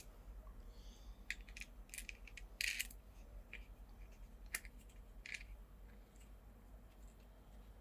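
Scattered light clicks and rustles of small electrical parts being handled, with a few sharper clicks about two, three, four and a half and five seconds in, over a faint low hum.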